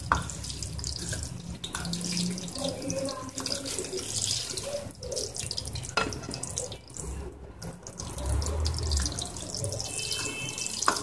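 Sugar being stirred into hot ghee in a metal karahi with a spatula and cooked until its crystals melt: a steady hiss with the spatula scraping and now and then knocking against the pan, sharply at the start and again about six seconds in.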